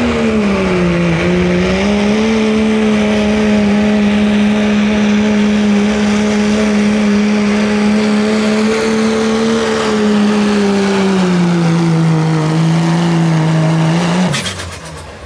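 Turbocharged Cummins diesel in a first-generation Dodge Ram pickup running flat out under heavy load, pulling a weight-transfer sled. Its pitch dips about a second in, holds steady, sags a little toward the end, then drops away sharply about fourteen seconds in as the throttle is let off.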